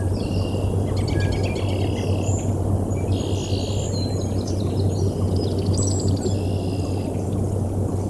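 Wind rumbling steadily on the nest camera's microphone over a low hum, while several small songbirds sing and trill around the nest.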